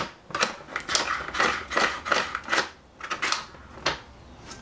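Salad spinner being spun by hand to dry freshly rinsed salad greens: a string of short whirring, rattling strokes, a few a second.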